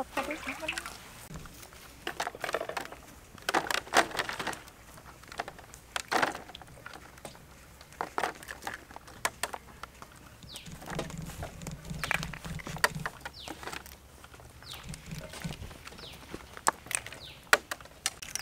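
Raw chicken feet being handled and sorted by hand between baskets: scattered clicks and light knocks.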